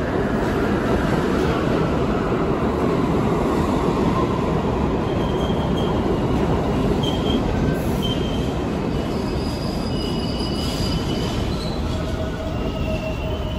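New York City subway train pulling into an underground station and slowing to a stop: a steady rumble of steel wheels on rail, with short high-pitched brake and wheel squeals in the second half.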